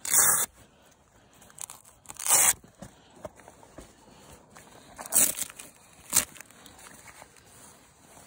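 Velcro (hook-and-loop) strips on a body-armour vest carrier being ripped open, in four short tearing bursts, with fabric crinkling and rustling between them as the carrier is pulled apart to reach the armour panel.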